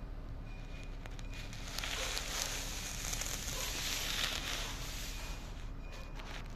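Crackling, rustling noise for a few seconds, strongest in the middle, over a steady low electrical hum: handling noise from the phone being moved.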